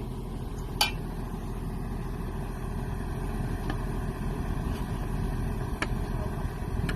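Excavator diesel engine idling steadily, with a few sharp clicks over it.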